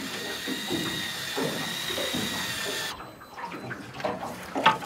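Electric fishing reel winding line up from deep water with a steady high whine that cuts off sharply about three seconds in, as the reel's motor shuts off automatically near the end of the retrieve. Water splashing and sloshing around the line comes through underneath and after it.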